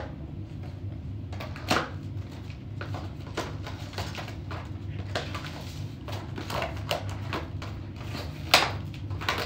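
Crinkling, crackling and clicking of clear plastic wrapping being peeled off a small cardboard product box while it is handled, with a louder crackle about two seconds in and another near the end. A steady low hum runs underneath.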